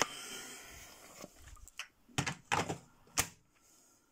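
Rustling, then several sharp plastic clicks and knocks from handling a cordless drill and its battery pack, typical of the pack being fitted to the drill.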